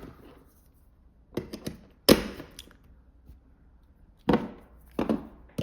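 A few sharp clicks and knocks of a USB charging cable and charger being handled and plugged into a USB-A port, the loudest knock about two seconds in and more near the end.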